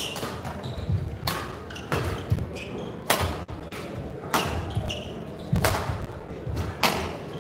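Badminton rally: sharp cracks of rackets hitting the shuttlecock about once every second and a quarter, with duller thuds of players' feet on the court between the hits.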